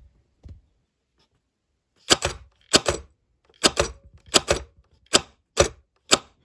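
Solenoid pusher inside a modified Nerf Stryfe cycling in semi-auto, snapping out and back with each trigger pull. About seven sharp clacks, most of them quick doubles, start about two seconds in and come roughly every two-thirds of a second.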